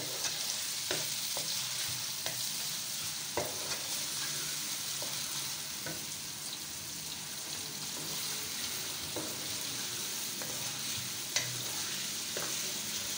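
Sliced onions sizzling in hot oil in a karahi, stirred with a wooden spoon that scrapes and knocks against the pan now and then.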